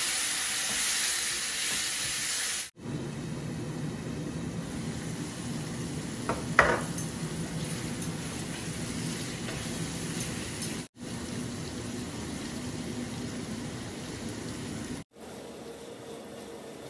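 Onion-and-spice curry masala sizzling in a stainless steel frying pan just after a little water has gone in, stirred with a wooden spatula. There is one sharp clink about six and a half seconds in, and the sizzle cuts out abruptly three times.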